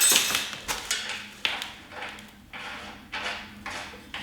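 Steel washers and a nut being handled and fitted onto a cart's wheel bolt: a string of light clinks and scrapes, about two a second.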